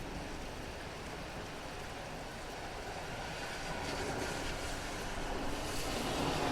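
Steady rain with a car passing on a wet road, its tyre hiss swelling gradually toward the end.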